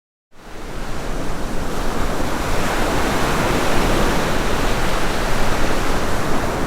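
Loud, steady rushing noise with no tone or rhythm, starting abruptly and swelling over about the first second.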